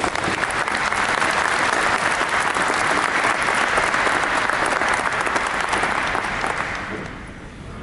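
Audience applauding, with even, steady clapping that dies away near the end.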